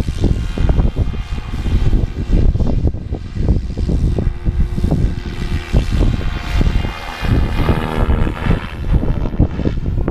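SAB Goblin 570 electric RC helicopter flying at a distance, its motor and rotor giving a faint high whine. Gusty wind buffets the microphone throughout.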